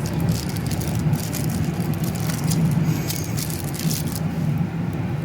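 Steady drone of a Boeing 737-800 passenger cabin in flight, with engine and airflow noise and a constant low hum. Scattered light clicks sit on top.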